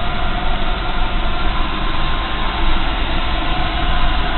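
Ray oil burner firing an old Ideal low-pressure steam heating boiler, running with a steady, even noise and faint steady tones.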